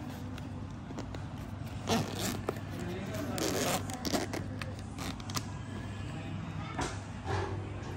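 Zipper on a DJI Mic 2 fabric carrying pouch being pulled open in several quick rasping strokes, the longest a little past the middle, followed by lighter rustling as the pouch is spread open.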